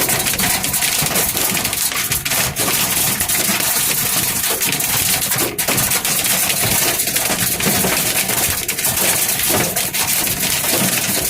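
Hailstones pelting a van's roof and body, heard from inside the cabin: a loud, dense, continuous clatter of impacts. The hailstones are getting bigger.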